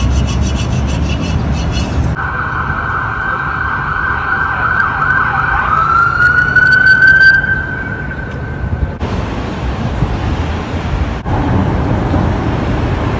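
Emergency vehicle siren wailing for several seconds: it dips in pitch about halfway through, rises again, then stops abruptly. Steady street noise lies under it and continues after.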